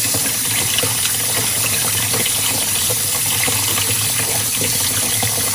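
Kitchen tap running steadily into a sink while scallop meat is rinsed by hand under it, with small splashes and clicks from the washing.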